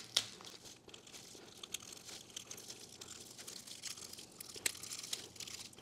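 Plastic cling wrap being cut with a small knife and peeled back off a package: faint crinkling and tearing with many small scattered crackles.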